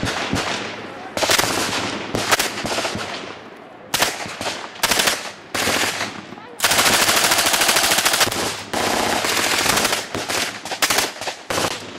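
.45 Thompson submachine gun firing several full-automatic bursts: short ones at first, then a continuous burst of about two seconds a little past the middle, followed by another long one.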